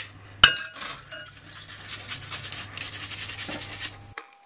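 A brush scrubbing plastic keyboard keycaps in soapy water, with quick scratchy bristle strokes. A sharp clink, about half a second in, is the loudest sound, and the sound stops abruptly near the end.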